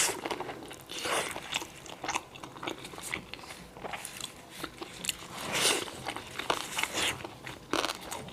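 Close-miked chewing with irregular crisp crunches, as of bites into crunchy dried radish pickle (萝卜干).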